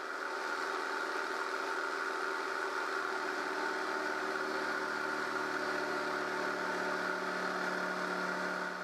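Jigsaw mounted under a jigsaw table, its motor running steadily as the blade rip-cuts a pine board lengthwise; the saw is working hard at the rip cut.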